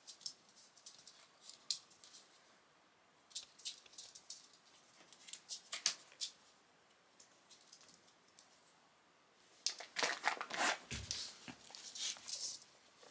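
Scattered light clicks and rustles, then a denser stretch of crinkly rustling about ten seconds in.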